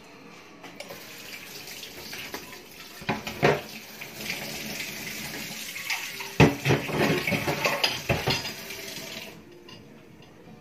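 Kitchen tap running into a sink for about eight seconds, with metal pots and utensils clanking in it; the water shuts off suddenly near the end.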